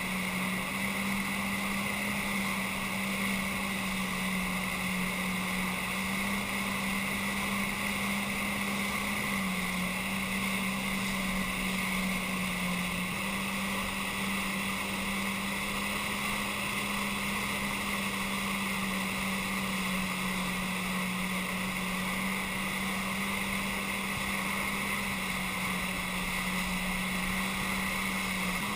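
Jet ski engine and jet drive running steadily at speed while towing a surfer, with its wake churning behind. A continuous hum whose pitch steps up or down slightly a few times as the throttle shifts.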